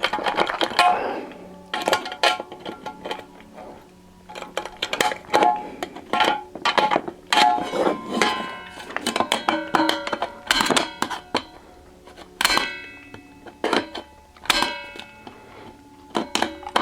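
Hand nibbler punching through the thin stainless steel wall of a utensil bin: a string of irregular sharp snaps, each leaving the sheet metal ringing briefly.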